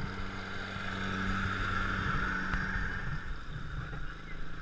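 A motor vehicle's engine running: a steady hum that swells through the middle and eases off after about three seconds.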